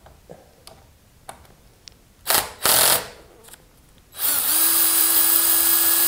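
Power drill with a 5/16 driver bit backing out a screw from a garage door opener's gear housing. There are a few light clicks of the bit being fitted, then two short bursts of the drill about two seconds in, and a steady two-second run of the motor near the end.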